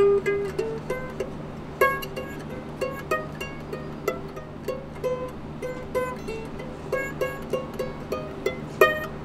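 Plucked strings of a small guitar-like instrument with a gun-shaped body, picking single notes in a quick, uneven melody over a steady low hum.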